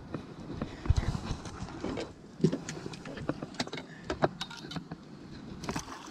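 Knocks and clicks of gear being handled on a fiberglass boat deck as a landing net is grabbed and lifted, with a heavy thump about a second in and a run of quick clicks toward the end.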